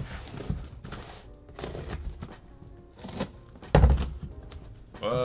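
Cardboard box being slit open and its flaps pulled back, with scraping along the packing tape and a heavy cardboard thunk a little under four seconds in, over soft background music.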